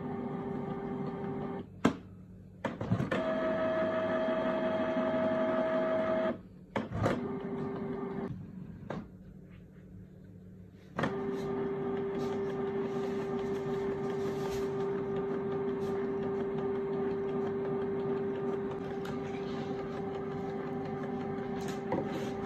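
Canon PIXMA G3420 ink tank printer's mechanism whirring with a steady hum as it runs its first-time ink system initialization after the tanks are filled. The sound breaks off and restarts abruptly several times in the first half, then runs unbroken.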